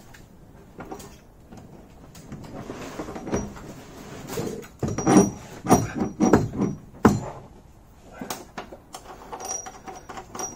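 Clunks, knocks and scrapes of a Citroën BE4 gearbox's aluminium casing being manhandled into place against its mounts, with a cluster of loud knocks about halfway through and scattered clicks.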